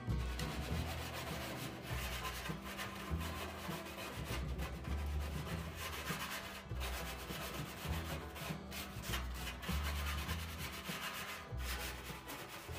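Gloved hands rubbing and scraping against a steel oil drum around its cut-out door panel: a continuous rough scraping noise over a low rumble.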